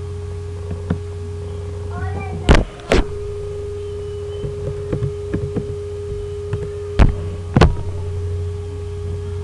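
Computer keyboard typing a short word in a quick run of light clicks, with a few louder single clicks before and after it. A steady electrical hum with a constant tone runs underneath.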